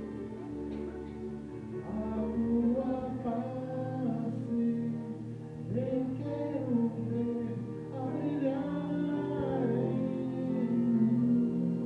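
Music with singing voices, several voices blended over sustained musical backing.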